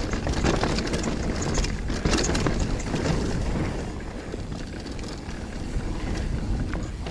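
Mountain bike riding down a dirt trail: a steady rumble of tyres and wind, with scattered knocks and rattles from the bike over rough ground.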